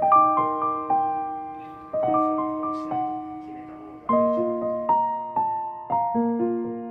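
Background music: a gentle solo piano melody, notes struck and left to ring and fade, with the occasional faint click underneath.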